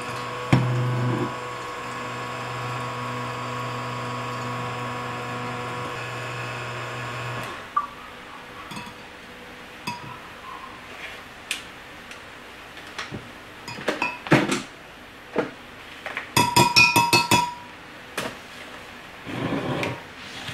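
Stick blender running in a glass jug of soap batter, a steady motor hum that gets louder briefly near the start and stops about seven and a half seconds in. After it stops come scattered clinks and knocks of the blender and utensils against the glass jug, with a quick run of rapid clicks near the end.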